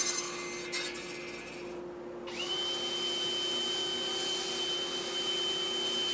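Cordless drill running steadily, spinning a wooden idler drum on its shaft while sandpaper is pressed against it to sand the drum round, a steady motor whine under a sanding hiss. About two seconds in a higher whine starts and holds.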